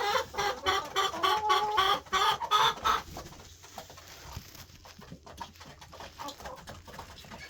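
Chickens clucking, a run of short, loud calls over the first three seconds, then quieter with only faint scattered clicks and scuffles.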